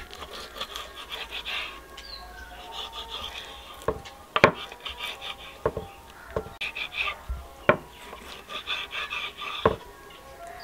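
Kitchen knife slicing through raw beef heart on a wooden cutting board: soft scraping cuts, with about six sharp knocks as the blade meets the board, irregularly spaced through the second half.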